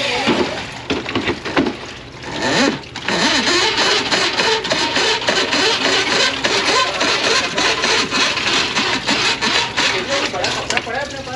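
Electric drain-cleaning machine running its cable into a plugged grease trap line, with a dense, rapid rattle and clatter from about three seconds in.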